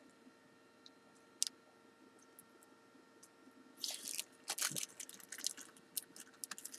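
Small sharp clicks and scratchy handling noises of tiny lock pins being set into the pin chambers of a Kwikset-clone lock plug during rekeying: one faint click about a second and a half in, then a quick cluster of clicks and scraping from about four seconds in.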